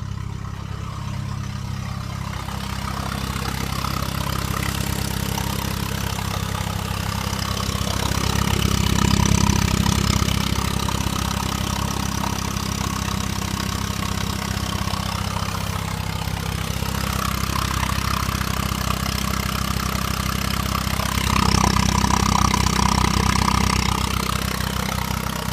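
2002 VW GTI's 1.8-litre turbocharged four-cylinder engine running near idle with a loud, odd noise. The sound swells louder twice, about eight and about twenty-one seconds in. The owner was told it sounds like an exhaust leak, and he has felt air escaping at the top flex part of the turbo oil return line.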